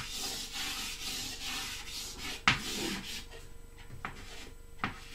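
White chalk scraping across a blackboard in long drawing strokes, with a sharp tap of the chalk about two and a half seconds in; the strokes die away over the last second and a half, leaving a few light taps.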